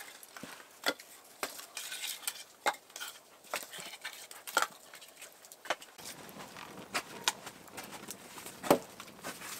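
Split pieces of firewood knocking together as they are laid on a bed of hot coals, then a wood fire crackling with irregular sharp pops, the loudest near the end.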